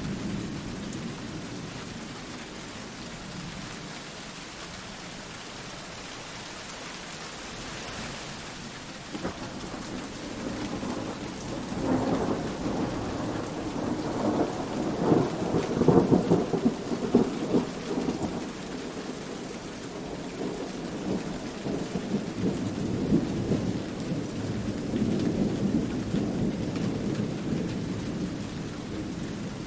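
Steady rain falling, with a roll of thunder that builds about a third of the way in, crackles loudest around the middle, then rumbles on more softly to the end.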